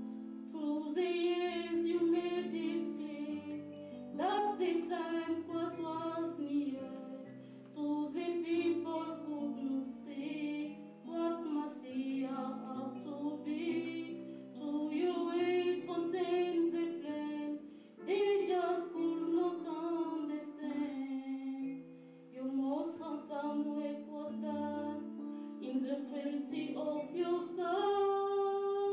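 A worship song in a church service: voices singing a slow melody over sustained instrumental accompaniment.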